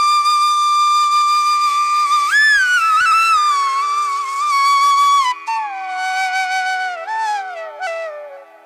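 Background music: a single woodwind melody holds one long note, then falls slowly through lower notes and fades near the end, over a steady low drone.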